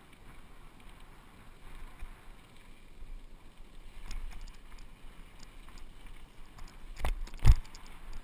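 Fuji hardtail mountain bike rolling down a dirt trail, heard from a handlebar-mounted camera: a steady rumble of tyres and wind on the microphone. Light rattling clicks start about four seconds in, and near the end come two hard thumps half a second apart as the bike jolts over bumps.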